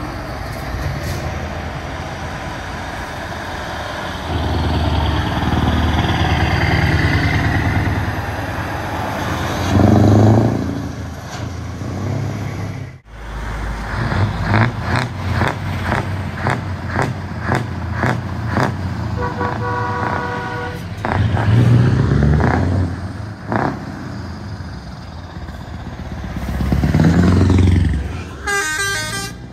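Heavy trucks driving slowly past, their diesel engines running and swelling louder as each one goes by. One truck sounds a horn with several tones at once for about a second, past the middle, and another short horn sounds near the end. There is an abrupt break about halfway through.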